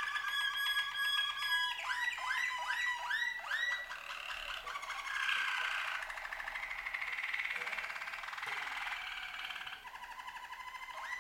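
Domestic canaries singing in a duet: fast trilled rolls on steady notes, then a run of repeated rising whistled glides about three a second, then dense rolling trills.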